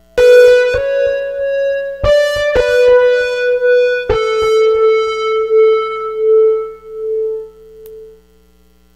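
Keyboard music in a piano-like tone: a handful of struck chords, the last one held with a wavering tremolo that fades out about eight seconds in. A faint steady electrical hum is left.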